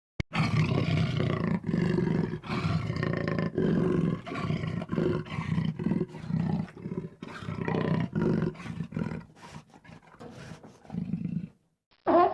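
A large animal roaring: a long run of deep, rough calls, each about a second or less, one after another with short breaks, ending abruptly near the end.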